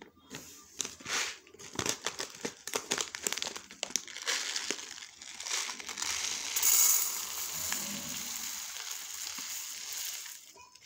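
Foil-lined plastic rice bag crinkling as it is handled, followed by a steady hiss of dry raw basmati rice grains pouring from the bag onto a steel plate from about six seconds in until shortly before the end.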